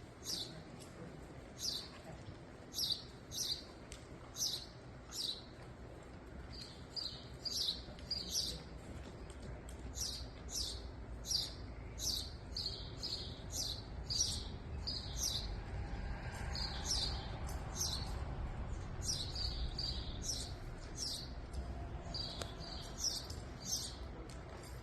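A small bird chirping over and over, with short high chirps one or two a second, over a low steady rumble.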